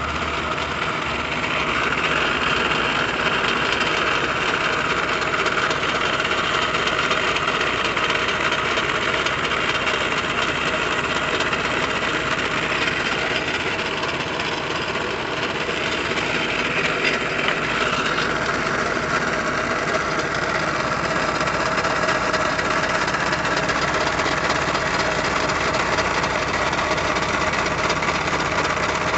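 Drill press motor running steadily with a sanding drum spinning in the chuck, grinding the edge of a screen-printing squeegee blade held against the fence.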